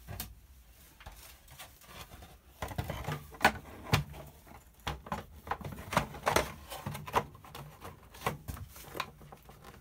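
Plastic clicks, knocks and rattles as the hood of a Hoover Turbopower upright vacuum cleaner is handled and fitted back onto the body. The clicks come irregularly, several a second at times, with the sharpest near the middle.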